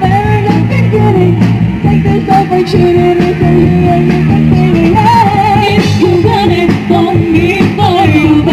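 Pop-rock band music: a steady bass and drum backing under a wavering, ornamented lead melody.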